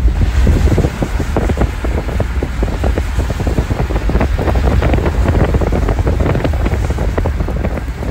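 Strong gusty wind buffeting the microphone: a loud, continuous low rumble broken by many crackling gusts.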